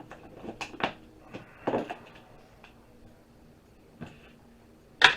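Scattered clicks and knocks of small plastic and metal parts being handled while a small motor assembly is dismantled for scrap, then a louder clatter near the end as a part is tossed into a scrap bucket.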